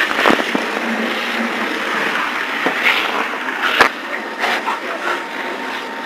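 Fire hose nozzle spraying a fine water fog, a steady hiss, with a few sharp knocks, the loudest just under four seconds in.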